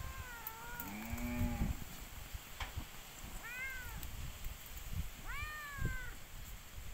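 An animal calling: three high, arching calls that rise and fall in pitch, near the start, a little past halfway and near the end, with a lower-pitched call about a second in.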